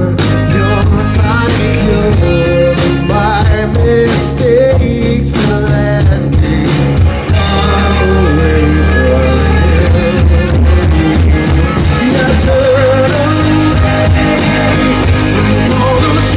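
Live rock band playing at full volume: drum kit, guitars and bass, with a melody line that bends in pitch over the top.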